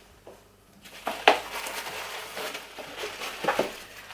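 Packaging rustling and crinkling as the contents are lifted out of a shoe box, with a sharp knock about a second in and a couple of lighter clicks near the end.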